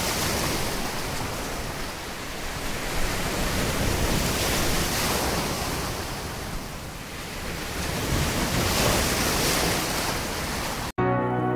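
Sea waves washing, a steady rush that swells and ebbs every four to five seconds. It cuts off abruptly near the end, and music starts.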